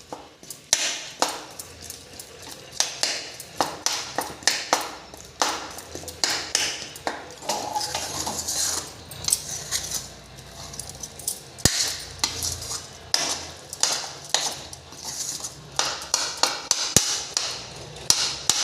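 A metal cooking spoon scraping and clinking against a kadhai in quick, irregular strokes as a thick ginger paste with melting jaggery is stirred without a break.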